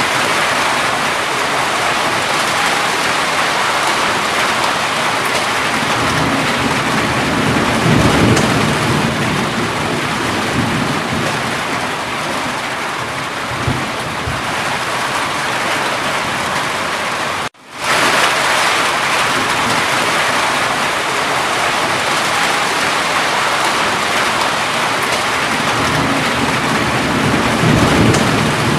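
Steady heavy rain, with low thunder rumbling twice: once around a quarter of the way in and again near the end. The sound cuts out for a split second about two-thirds of the way through, then resumes.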